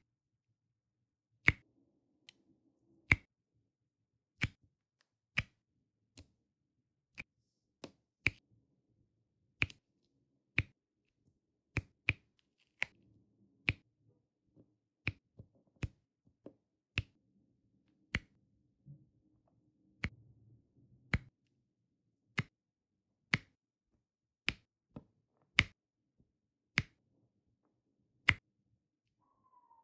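Sharp single clicks of a diamond-painting drill pen with a multi-placer tip pressing full round drills onto the sticky canvas, about one a second and unevenly spaced, with faint rustling of handling in between.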